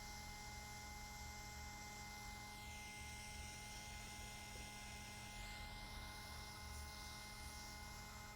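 Hot-air rework station blowing on a circuit board: a faint steady hum with thin high tones and a hiss of air. The hiss sweeps down and back up once partway through as the airflow shifts.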